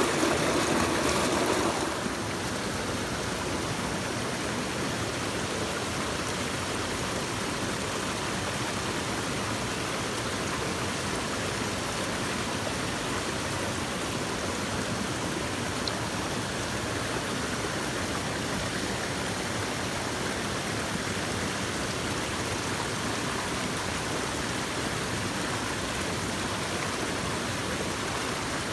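Mountain stream water rushing steadily over rocks. It is louder and deeper for about the first two seconds, then settles to an even rush.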